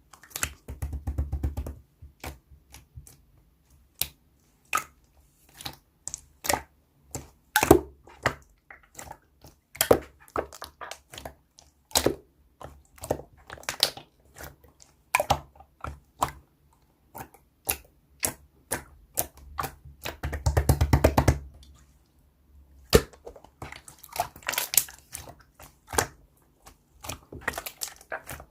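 Clear slime being pressed and stretched by hand: irregular sticky clicks and pops, with two stretches of rapid crackling, one near the start and one about two-thirds through.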